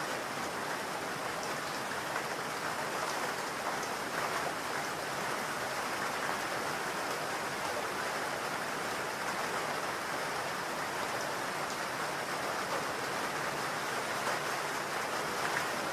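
Baby-soothing white noise: a steady, even hiss with most of its weight in the middle and upper range, unchanging throughout.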